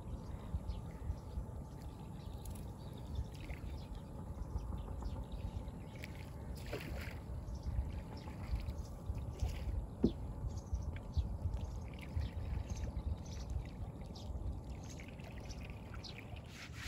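Shallow water sloshing and splashing, with scattered small clicks over a steady low rumble.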